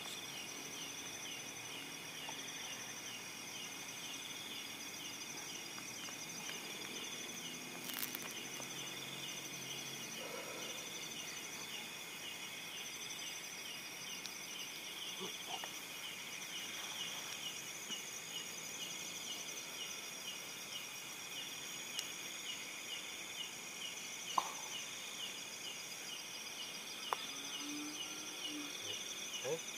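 Night insects, crickets or katydids, chirping in a steady, rhythmic chorus of several quick pulses a second, with a few faint clicks.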